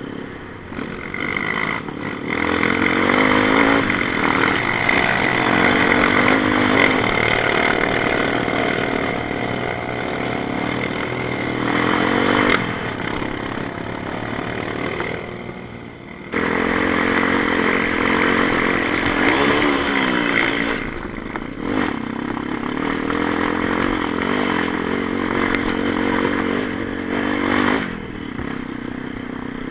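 A vehicle engine running under load, rising and easing off several times, with a short drop about halfway through.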